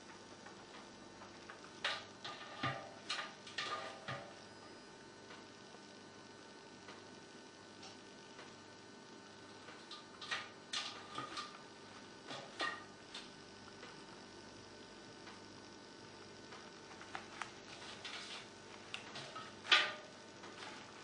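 A red squirrel rummaging in a copper pan of fruit and paper, picking out an apple: three spells of small clicks and scratches over a steady faint hum.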